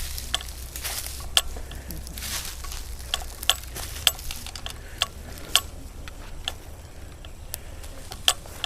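Airsoft guns firing single shots: sharp pops about eight times at irregular intervals, under a low rumble.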